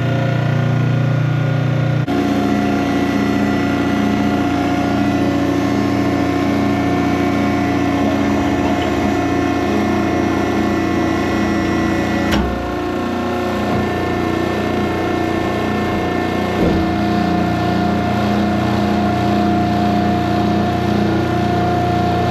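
A piston machine running steadily with a constant hum and held tones. The sound changes abruptly about two seconds in and again around twelve seconds.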